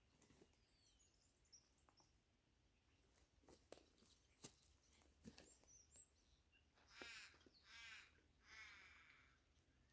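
Faint outdoor quiet with a crow cawing three drawn-out, raspy calls in the second half, small birds chirping faintly and a few soft clicks earlier.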